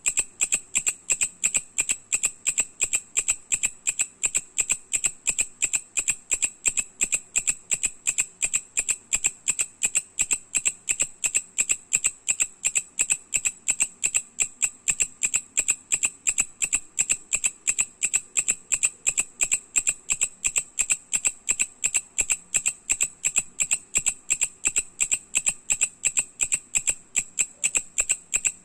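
Mecopoda katydid calling: a steady, even series of sharp high ticks, about three a second, repeating without a break.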